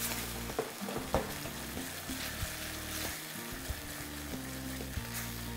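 A thickening sauce of onion, garlic, oyster sauce and soy sauce sizzling steadily in a hot pan, with a few light clicks of a utensil against the pan.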